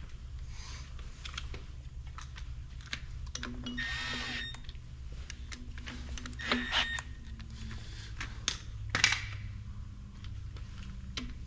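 Scattered clicks and metallic clinks of hand tools, a socket on a long extension and bolts being fitted to an engine bracket, with three short metal rattles, the longest about four seconds in.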